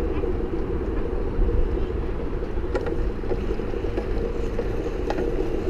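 Small hard wheels rolling steadily over brick paving close to the microphone, giving an even rumbling hum.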